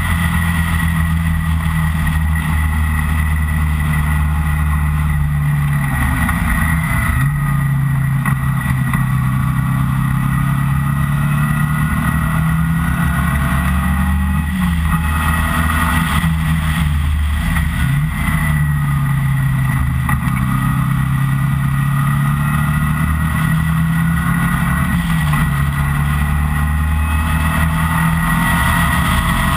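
Engine of an open-cockpit track car heard from onboard at speed, holding a steady note that dips in pitch and climbs back a handful of times as the driver shifts or lifts for corners.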